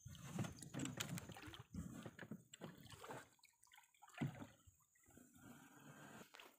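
Faint water sloshing and dripping around a small outrigger boat in shallow water, with scattered light knocks and clicks and one slightly louder knock about four seconds in.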